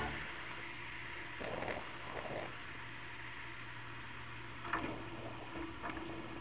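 Faint, steady low drone of the Savannah-S Twin ultralight's engine and propeller as it rolls along the runway, with a few brief soft bumps.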